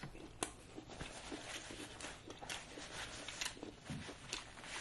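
Quiet eating sounds: soft chewing with a scatter of sharp mouth clicks, a few a second, and a paper napkin rustling as the hands are wiped.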